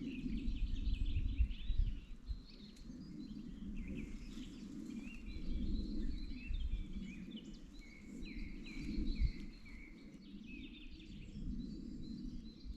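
Small birds chirping in a rapid string of short, high calls, over a low rumbling background.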